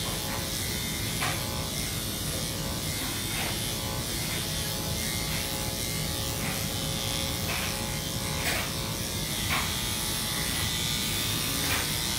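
Electric pet grooming clippers running steadily, shaving through a Lhasa Apso's coat. There are brief scratchy strokes every second or two as the blade passes through the hair.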